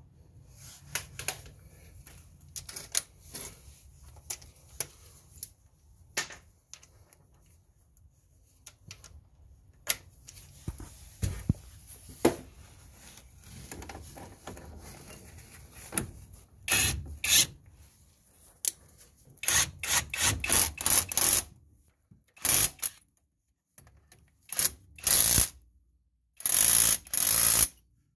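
Tools working on the brake caliper bolts: scattered metal clicks and knocks, then from about 17 seconds in a run of short rattling bursts, each under a second, as the bolts are tightened.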